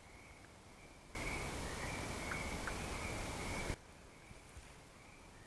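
Faint steady high-pitched trilling of night insects, interrupted about a second in by a loud even hiss lasting about two and a half seconds that starts and cuts off suddenly, with two faint clicks within it.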